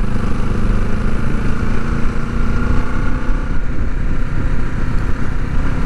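1973 Honda CB450's parallel-twin engine running steadily at cruising speed, with wind and road rush on the microphone.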